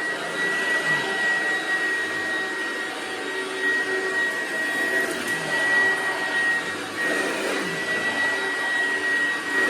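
1996 Oreck XL9200 upright vacuum cleaner running steadily, its motor giving a high, even whine over the rush of air.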